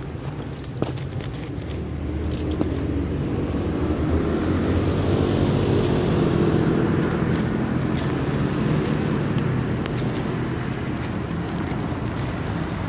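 City street traffic: cars and other vehicles driving past, the engine and tyre rumble swelling to a peak about halfway through and then easing off, with a few light clicks.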